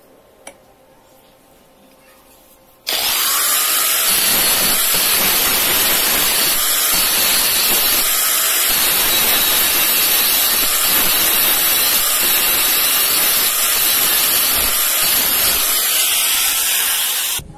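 Handheld angle grinder switched on about three seconds in, its disc grinding against the end of a short steel rod, running steadily for about fourteen seconds and then cut off suddenly. A single small tick comes before it starts.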